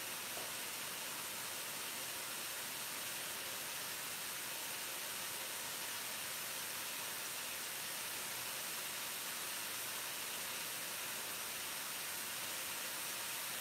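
Steady hiss of curry sauce sizzling in a pan on a gas hob as the base gravy reduces.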